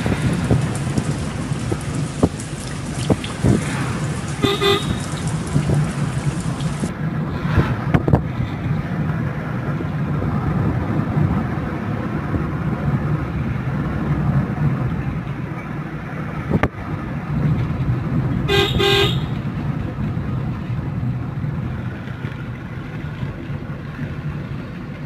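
A vehicle horn sounds twice in short blasts, one a few seconds in and another about fourteen seconds later, over a steady low rumble of road or vehicle noise.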